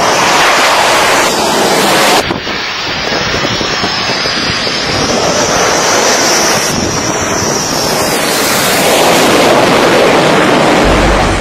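Jet fighter engines running at high power: a loud, steady jet noise with a high whine that wavers in pitch, swelling briefly near the end. The sound jumps at an edit about two seconds in, and low music starts just before the end.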